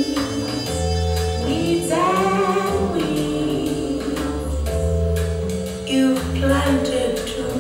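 A song with a singing voice over bass and percussion, played through open-baffle full-range speakers driven by a single-ended F2a tube amplifier and heard in the room.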